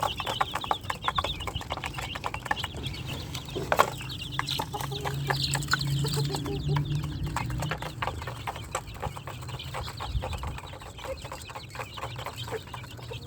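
Backyard chickens clucking, with many short ticks and one sharp knock about four seconds in.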